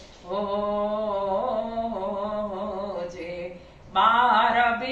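A woman singing a Gujarati devotional bhajan unaccompanied, holding one long drawn-out note, breaking off briefly, then coming back in louder near the end.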